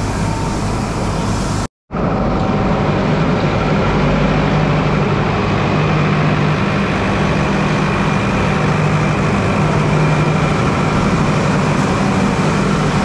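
Steady running hum of a locomotive standing at a station platform: a low drone under a steady hiss, with a brief dropout about two seconds in.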